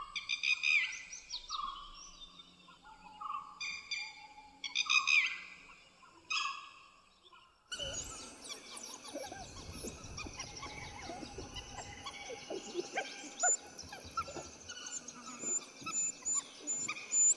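Dhole whistling: several groups of short, high whistle calls that bend upward, the contact call a dhole uses to summon the pack to a kill. About eight seconds in the sound changes suddenly to forest birds chirping over a steady high tone.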